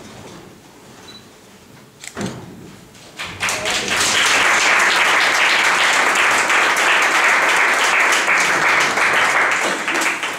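Audience applauding, starting up about three seconds in, holding steady and dying away near the end. A couple of soft knocks come just before it.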